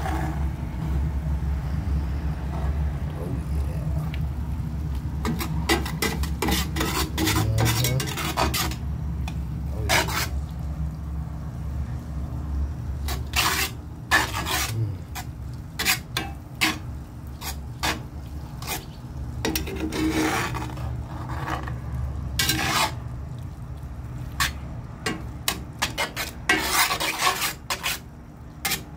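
A spatula scraping and stirring an egg-and-sausage scramble in a cast-iron skillet, in many short, irregular strokes over a steady low hum.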